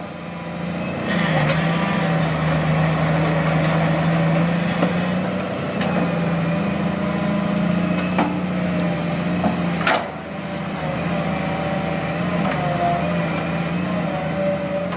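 Sumitomo hydraulic excavator's diesel engine running steadily, its pitch shifting up and down as it works, with several sharp knocks, the loudest about ten seconds in.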